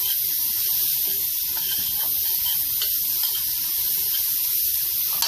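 Corn kernels frying in butter in a pan: a steady sizzle with scattered small pops, and a single short knock at the very end.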